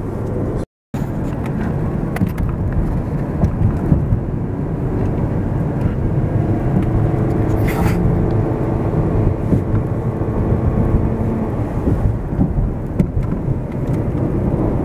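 Car cabin noise while driving: a steady low rumble of engine and tyres on a wet road. The sound cuts out completely for a moment about a second in.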